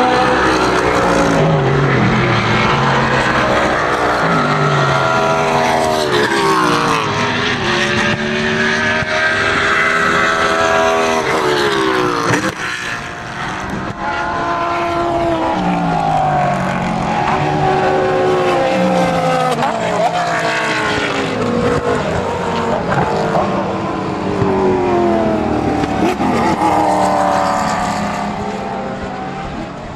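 GT race car engines at racing speed, a Mercedes-Benz SLS AMG GT3's V8 among them. Their pitch climbs in steps through the upshifts, then drops away on braking and downshifts, again and again as the cars lap past. The sound fades out near the end.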